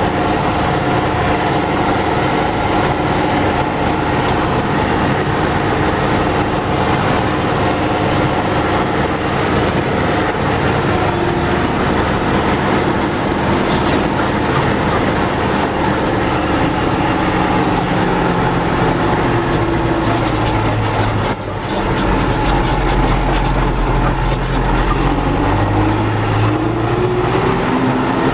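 MTZ tractor under way, its diesel engine and transmission running steadily with a few steady tones through the noise. The freshly repaired rear axle runs without a hum. The engine note shifts about twenty seconds in and rises again near the end.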